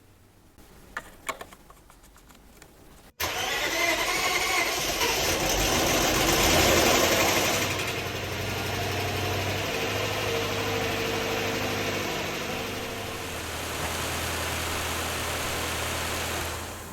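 A few light clicks, then about three seconds in a car engine starts suddenly, runs up briefly and settles to a steady idle, the test run after a new timing chain has been fitted. The sound cuts off sharply near the end.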